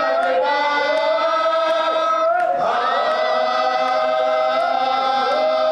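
A group of men chanting a marsiya, an Urdu elegy, unaccompanied and together, holding long drawn-out notes. About two and a half seconds in they break briefly and start a new phrase.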